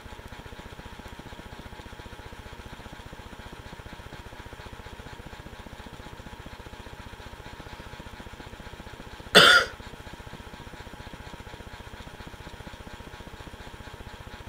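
One short, loud, explosive burst of breath from a man with a rolled tissue in his nose, who is trying to make himself sneeze, about nine seconds in, over a steady low background hum.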